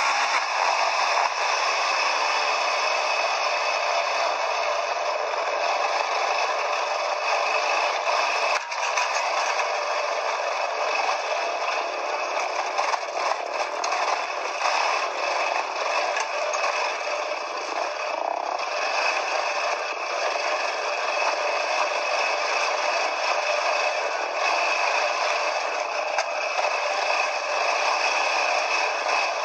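Quad bike riding a rough dirt trail: a steady, dense rattling and clattering, with little clear engine note standing out. A single knock comes about nine seconds in.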